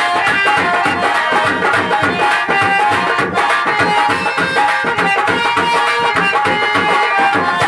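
Instrumental interlude of live folk stage music. Hand drums play a fast, even beat under a melody instrument holding steady notes.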